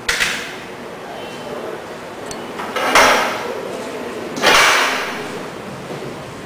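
Three sudden knocks and scrapes of furniture, one at the start, one about three seconds in and one a second and a half later, as a chair is pulled up and sat on at an upright piano on a tiled floor.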